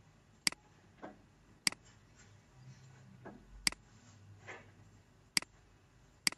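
Computer mouse clicking: five sharp, separate clicks at uneven intervals, with a few fainter ticks between them, as menu items are picked in the software.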